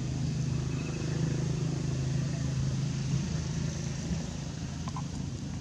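A steady, low engine hum, like a motor vehicle running nearby, easing off about three seconds in; a couple of faint ticks near the end.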